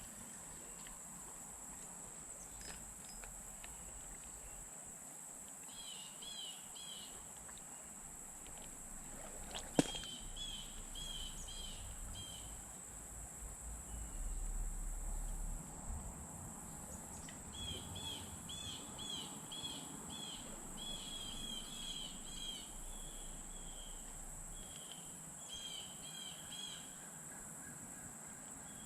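Creekside ambience: a steady high insect drone throughout, with a bird calling in several runs of quick repeated chirps. A single sharp click comes about ten seconds in.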